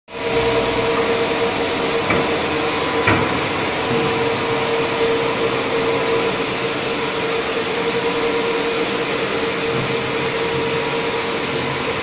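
Cable factory machinery running: a steady whirring noise with a constant hum in it, and a couple of faint clicks about two and three seconds in.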